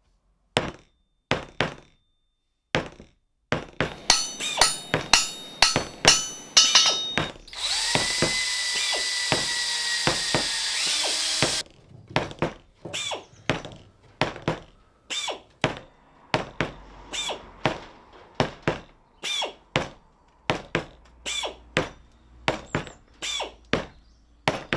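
Workshop sounds cut to a beat as title music: hammer blows and metal knocks, some of them ringing, broken near the middle by about four seconds of a whining power tool that cuts off suddenly, then steady knocks at roughly two a second.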